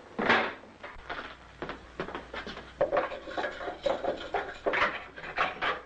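A run of irregular knocks and thuds, several a second, the loudest about a third of a second in.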